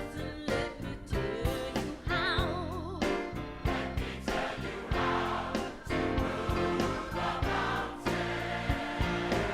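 Gospel choir singing with a live band, over a steady drum beat and bass.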